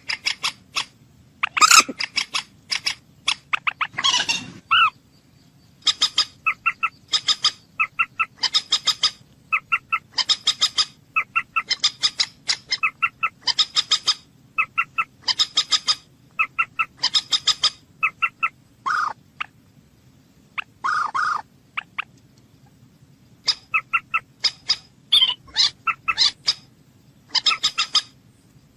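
Moorhen calling: quick runs of short, sharp clicking notes repeated over and over in clusters, with a couple of longer, lower calls in the second half.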